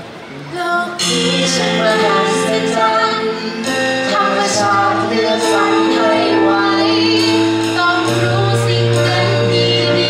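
A woman sings a Thai song over a backing track. The music swells in about a second in after a brief lull.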